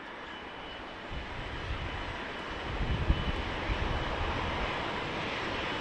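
Jet engines of a four-engine Boeing 747 on final approach, a steady rushing hiss with a faint high whine that grows louder as the airliner comes closer. Irregular low rumbling gusts from about a second in, typical of strong crosswind buffeting the microphone.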